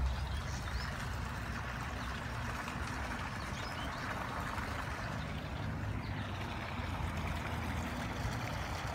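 Steady trickling and gurgling of flowing pond water, with a low steady rumble underneath.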